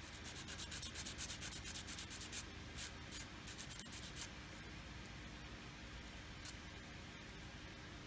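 Fine scratching and ticking from tweezers and fingers handling a tiny photo-etched seatbelt part, a quick run for about four seconds, then a single tick later on.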